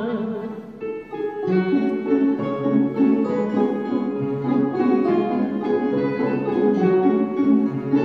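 Instrumental interlude of a Russian folk song: a woman's held sung note with vibrato fades out in the first half-second, then, after a brief dip, plucked strings take up the accompaniment with a steady repeating pattern.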